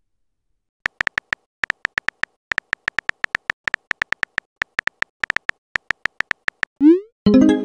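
Synthetic keyboard tap sounds of a texting app, one short pitched click per typed letter, about forty clicks at an uneven pace of six or seven a second. Near the end a short rising pop as the message is sent, then a brief pitched chime.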